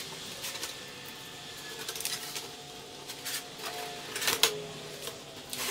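Clear plastic sheeting being peeled off freshly cured epoxy-and-fibreglass joints on plywood panels. It crackles and rustles as it comes away, with a sharper crackle about four and a half seconds in.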